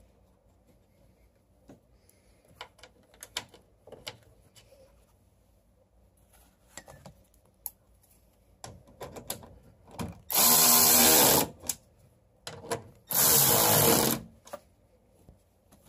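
A power drill/driver with a long bit running the taillight's mounting screws in, two short runs of about a second each, after scattered small clicks and knocks as the light is fitted into place.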